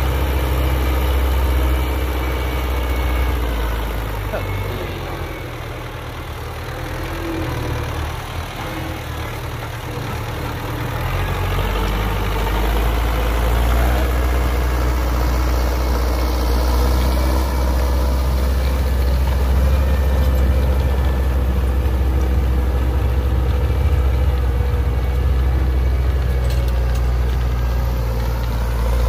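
Belarus 925 tractor's diesel engine running under load while its rear-mounted rotary tiller churns dry soil, a steady low drone. It dips for several seconds in the first half, then comes back strong and holds.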